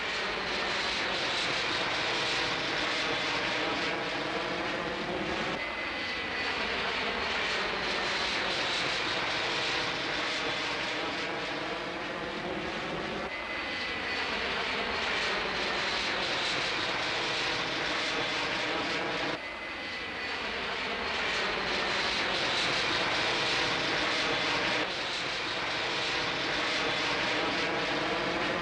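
Jet engines of a Boeing 747 climbing out after takeoff: a steady, loud jet noise with a faint high whine. The tone sweeps slowly as the plane passes, and starts afresh abruptly about every six seconds as one pass is cut to the next.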